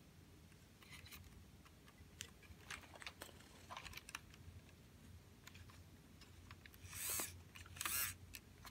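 Handling noise: scattered light clicks and taps of hands on a plastic RC model and phone, with two louder brushing scrapes near the end.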